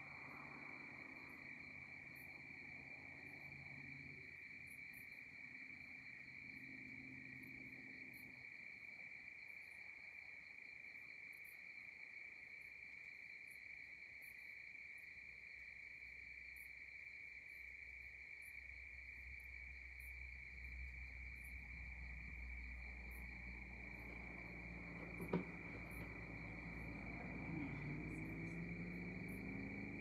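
Night chorus of crickets: a steady, unbroken high trill, with short, very high chirps from another insect about once a second. A low rumble builds in the second half, and there is a single sharp click about 25 seconds in.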